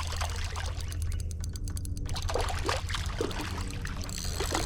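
Water splashing and trickling as a hooked fish is reeled in through the creek, with short irregular splashes over a steady low rumble.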